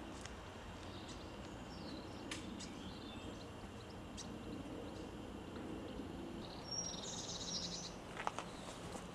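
Outdoor ambience: a steady soft background hiss, with a small bird chirping in a short rapid trill near the end and a few faint clicks.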